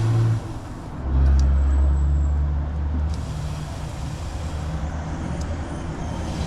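A low, steady mechanical rumble, loudest for a couple of seconds starting about a second in, then quieter.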